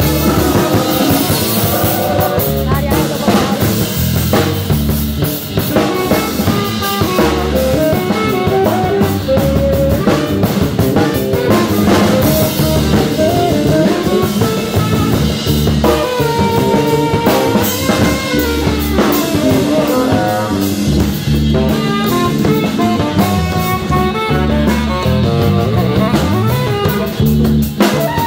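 Live band playing an instrumental number: a drum-kit beat under a stage keyboard and saxophone.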